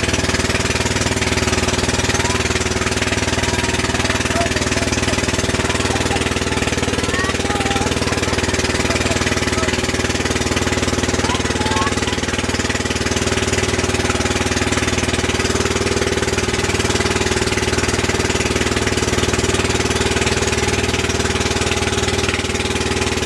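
Outrigger boat's engine running steadily at cruising speed: a loud, even, chugging drone that does not change.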